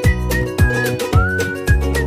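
Upbeat background music with a steady kick-drum beat about twice a second and a high, whistle-like gliding melody.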